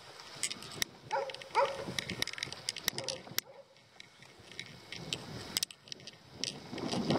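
Bicycle rattling and ticking as it rides a wet gravel road, with a dog barking a couple of times about a second in.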